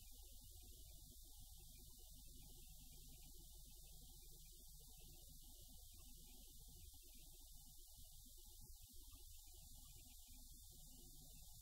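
Near silence, with only a faint low rumble and hiss.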